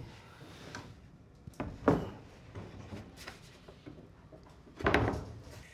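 A plywood panel is set down and shifted on top of upturned metal tool cabinets, giving several separate knocks and thumps. The loudest comes about two seconds in, and a cluster of knocks follows near the end.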